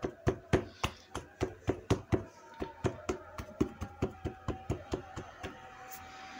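Fingertips quickly pressing the edges of folded gözleme dough shut against a hard tabletop, about four light knocks a second; the knocks grow softer and stop about five and a half seconds in.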